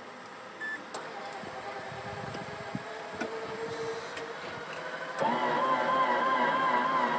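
Power foldout wheelchair ramp of a Rollx side-entry conversion deploying: a click about a second in, then the electric ramp motor and mechanism running with a whine. About five seconds in it turns louder, with a steady, slightly wavering tone.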